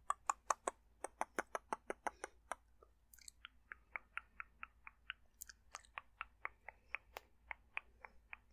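Close-miked dry mouth sounds: a fast, even run of tongue and lip clicks, about five a second. About halfway through they slow a little and turn duller.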